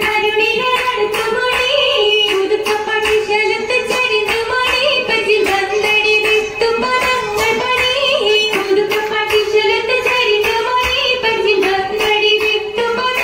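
Oppana song: female voices singing a Mappila melody over a steady beat of rhythmic hand claps from the dancers.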